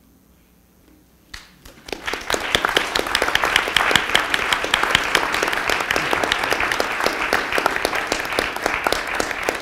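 Audience applauding: a near-quiet pause, a few first claps about a second and a half in, then steady applause from many hands.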